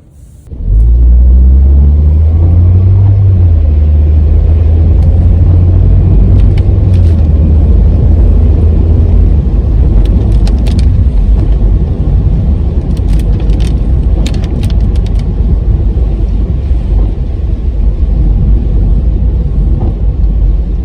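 Car driving on the road: a steady low rumble of road and running noise that starts suddenly just under a second in and rises in pitch over the first few seconds.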